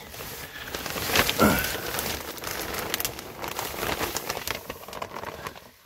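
Plastic vapor barrier sheeting on a crawlspace floor crinkling and rustling under someone crawling over it, loudest about a second and a half in.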